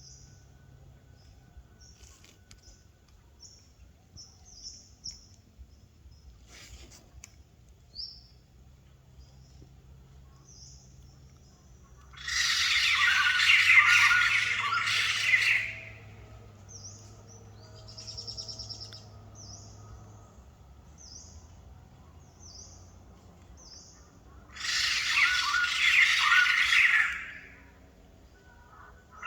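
White-crested laughingthrush calling: short high chirps throughout, broken twice by a loud outburst of calls, one of about three and a half seconds midway and one of about three seconds near the end.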